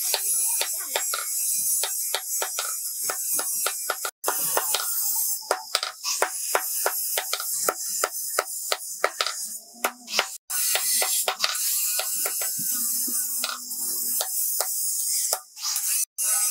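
Hand hammer striking a hot steel blade on a small anvil: a long run of sharp metal-on-metal blows, roughly two to three a second with short pauses, over a steady high hiss.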